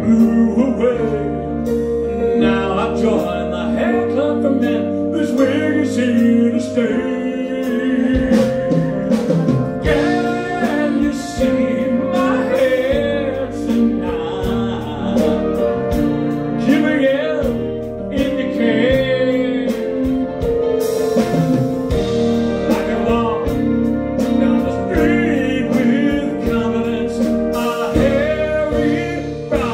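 A male singer sings a song over live band accompaniment with drums, holding some notes with vibrato.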